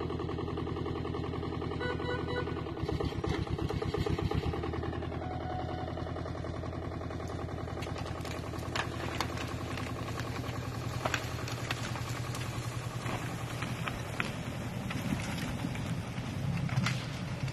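Engine of a forest cable crane (skyline yarder) running steadily while it hauls a suspended tree along the overhead cable, with a pulsing stretch about three to four seconds in. A few light knocks later on.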